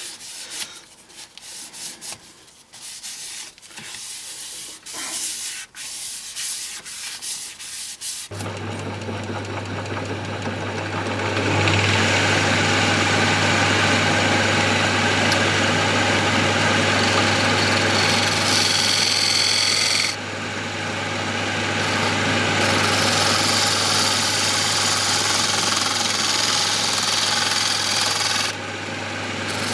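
Sandpaper rubbed by hand over a bird-cherry bowl in irregular strokes for about eight seconds. Then an electric wood lathe starts with a steady hum. From about a third of the way in, a turning tool cuts the spinning wooden blank with a steady hiss, lifting off briefly twice, once near the middle and once near the end.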